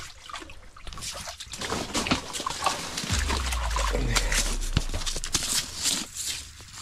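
A trout splashing and thrashing as it is pulled up out of an ice-fishing hole, with water splashing and dripping in a run of quick, irregular wet slaps and crackles. A low rumble runs for about two seconds in the middle.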